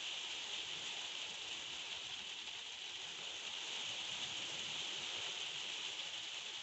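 Heavy thunderstorm rain falling steadily, an even hiss with no thunder or other distinct sounds.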